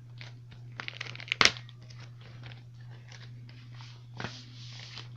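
Plastic packaging around a new laptop replacement screen being crinkled and pulled off: a run of crackles about a second in with one sharp snap, and more rustling near the end. A steady low hum runs underneath.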